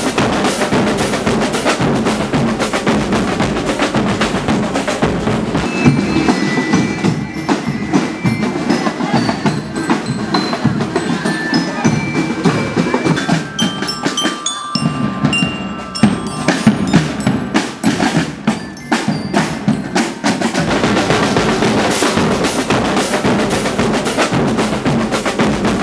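Marching band playing: snare and bass drums beat a fast, steady rhythm, with glockenspiel notes ringing out over them through the middle and a short drop in the drumming about halfway through.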